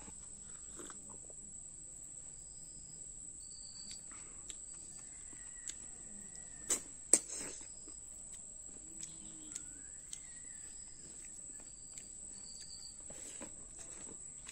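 Steady high-pitched insect drone with faint chirps over it, while someone eats snails by hand. A few sharp clicks of eating, the loudest pair about seven seconds in.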